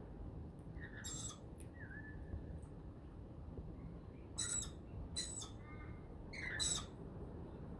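Wild lorikeets calling: short, harsh, high screeches about a second in and three more between about four and a half and seven seconds, with softer chirps in between. A low steady background noise runs underneath.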